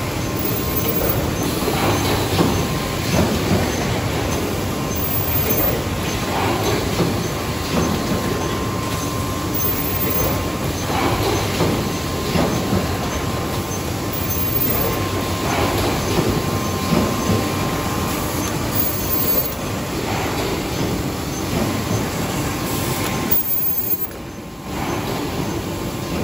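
Automatic rigid box making machine running: a steady mechanical din with irregular knocks and clacks every second or two.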